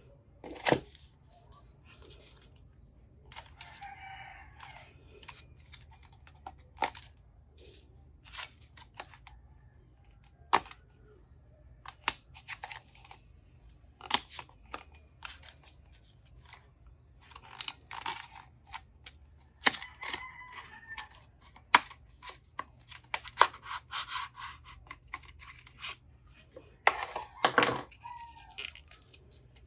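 A small blade slits the seal on a Samsung Galaxy SmartTag's cardboard retail box, which is then opened and unpacked. Many scattered sharp clicks and taps are heard, with several stretches of tearing and rustling packaging.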